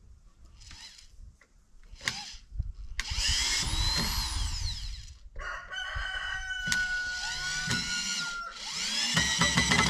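A rooster crowing, three crows: one about three seconds in, a long held one in the middle and another near the end. A few sharp knocks are heard between them.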